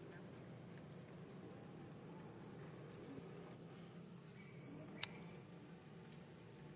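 An insect chirping in a steady, fast pulse, about five chirps a second, faint against a steady high whine from more insects. A single sharp click about five seconds in.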